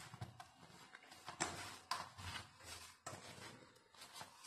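A hand squishing and mashing a soft mix of boiled potato, breadcrumbs and gram flour in a stainless-steel bowl, in irregular faint squelches.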